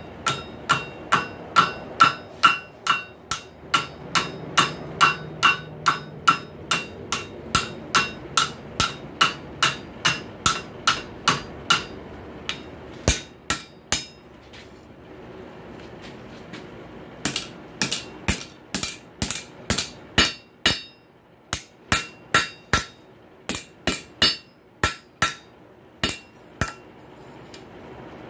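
Hand hammer striking a hot steel rail spike over the anvil horn, bending the handle's center, about three blows a second with the anvil ringing after each. The blows thin out to a few scattered strikes for several seconds midway, then pick up again.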